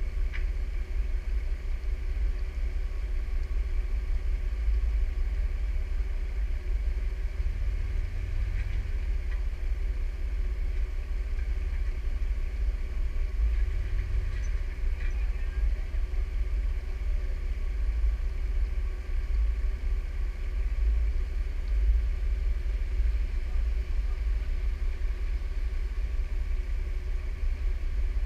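Jeep engine idling steadily, a low rumble picked up by a camera mounted on the hood.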